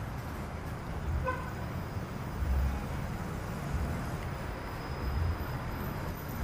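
Diesel light-rail railcar approaching at low speed: a steady low rumble of engine and wheels. A brief high tone sounds about a second in.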